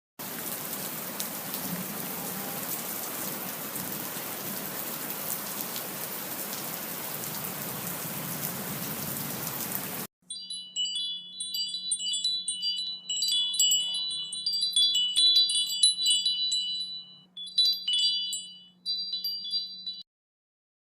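A steady rushing hiss, like rain, for about ten seconds that cuts off abruptly. Then high, tinkling wind-chime tones ring in irregular clusters for about ten seconds over a faint low hum, and stop.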